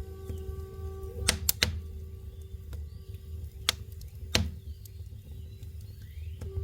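Campfire crackling, with four sharp pops from the burning wood, two close together early on and two more a few seconds later, over a low steady rumble. A Tibetan flute holds one low note, which fades after about a second and swells again near the end.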